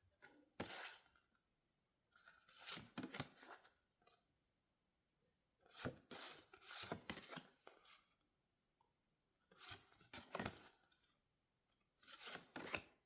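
Packaging being torn and rustled open by hand, in about five short spells of crackling.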